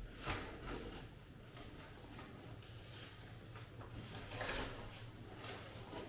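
Faint, occasional scraping and rustling of hand work inside a glass tank, over a steady low hum.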